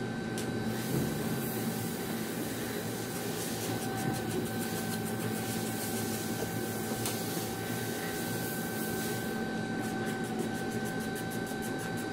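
Steady mechanical hum with a few fixed tones, like a shop fan or air-conditioning unit running. Faint light clicks come now and then, a little more often near the start and near the end.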